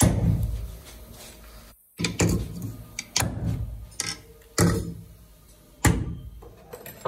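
Metal parts of a spin-dryer electric motor housing knocked and clanked together as they are fitted onto a steel fixture: a series of sharp metallic knocks, about eight, each with a short ring.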